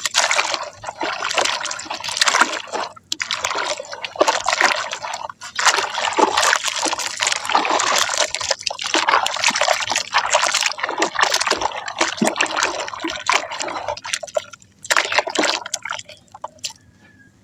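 Water splashing and trickling over soft dry mud as it soaks and crumbles, a dense, crackly, gritty sound with brief pauses. It stops about a second before the end.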